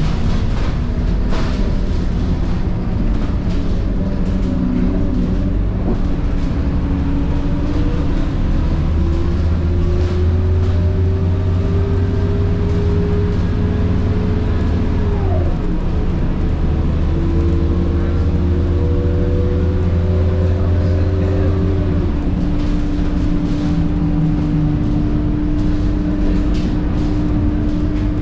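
Scania K230UB bus with its DC9 9.3-litre engine and ZF Ecomat 6HP504C six-speed automatic, heard from inside while pulling hard: a gearbox whine climbs slowly in pitch, drops sharply as the box shifts up about fifteen seconds in, then climbs again. About 22 seconds in the heavy engine drone eases and the whine holds steady.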